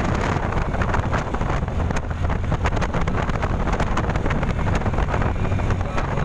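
Wind buffeting the microphone through the open side of a moving auto-rickshaw on the highway, over the vehicle's steady low engine and road drone.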